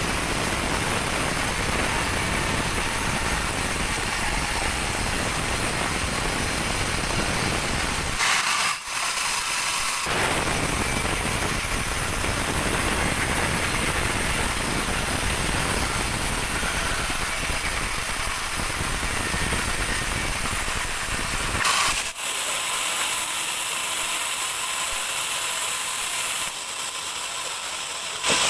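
Large band sawmill cutting dry teak, a steady hissing saw noise over a low rumble. The rumble breaks off briefly about eight seconds in, returns, and drops away after about twenty-two seconds, with a short sharp sound at each change.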